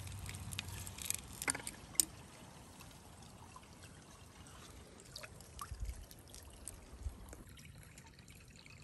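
Brook water trickling and splashing into a glass jar as it is dipped and filled, with several sharp drips and splashes in the first two seconds. After that, a few scattered drips, quieter near the end.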